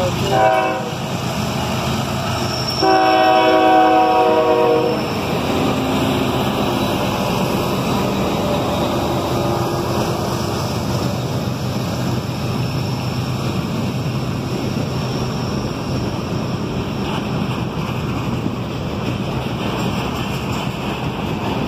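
CSX freight train's diesel locomotive sounding its air horn: a short toot just after the start, then a louder, longer chord from about three to five seconds in. After that comes the steady rumble and rattle of the freight cars rolling past on the rails.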